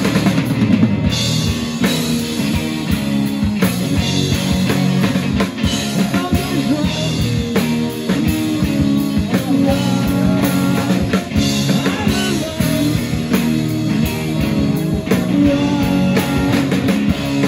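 A live rock band playing electric guitars through amplifiers over a drum kit.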